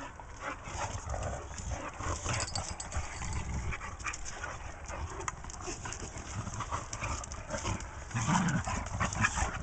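Two dogs play-fighting: short dog sounds mixed with the scuffle and tap of paws on concrete, getting louder near the end.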